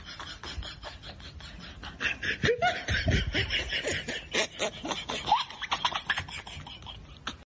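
Laughter in quick, chopped pulses, getting louder about two seconds in.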